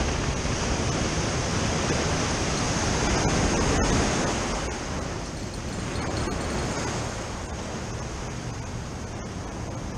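Ocean surf washing against the foot of a rocky seawall: a steady rush of breaking waves that swells about three to four seconds in, then eases.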